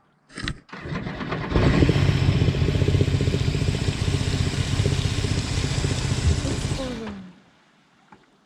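Jet boat engine is started and catches about a second and a half in, runs loudly for about five seconds, then is shut off and winds down with a falling pitch.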